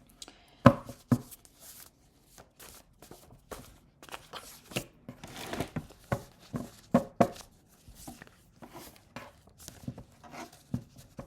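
Irregular rustling and crinkling with sharp taps and clicks of something being handled close to the microphone in a small room.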